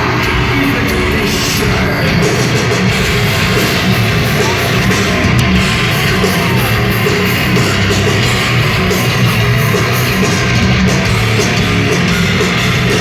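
Live heavy metal band playing loudly, with electric guitars over a heavy low end.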